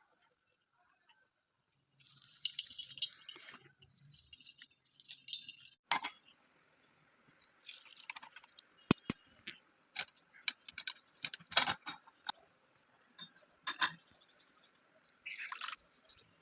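Liquid being poured and splashing in short spells, with glass and metal vessels clinking and knocking together in between.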